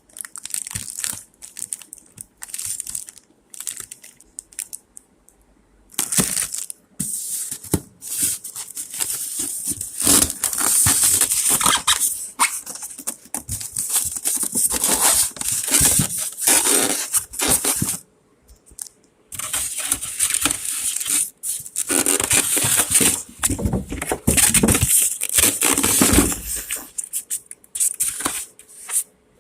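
Unboxing packaging handled and pulled apart: irregular rustling, crinkling and tearing in stretches of several seconds, with brief pauses about six and eighteen seconds in.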